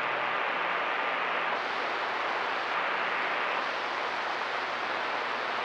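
CB radio receiver static: a steady hiss on an open channel with no station coming through and a faint low hum under it, as the skip has faded out.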